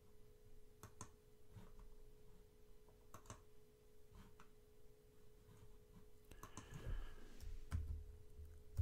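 Faint, scattered clicks of a computer mouse and keyboard, with a few key presses near the end, over a steady faint hum.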